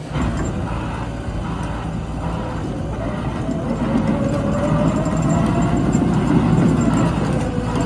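A heavy engine running steadily as a low rumble, with a faint tone that rises slowly around the middle.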